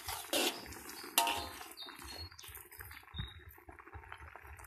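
A metal ladle clinks and scrapes against a wok of simmering coconut-milk curry, twice within the first second and a half, then softer liquid sounds from the pot.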